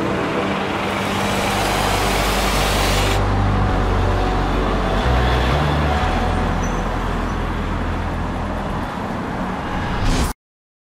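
Cinematic promo soundtrack: held deep bass notes under a swelling, rumbling noise layer that cuts off sharply about three seconds in. The bass shifts pitch about halfway through, and the whole track stops dead shortly before the end.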